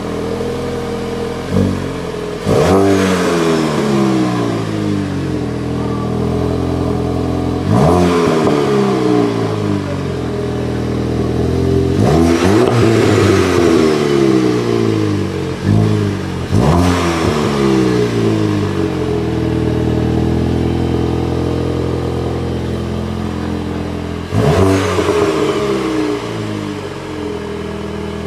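2018 VW Golf GTI Performance's 2.0-litre turbocharged inline-four being free-revved at a standstill. There are about six sharp blips, each followed by the revs falling back to idle over a few seconds.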